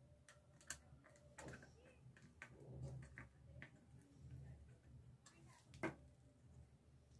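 Faint scattered clicks and taps of a small screwdriver and a wire on the brass terminal screws and plastic body of a switch board, the sharpest a little before the end, over a faint low hum.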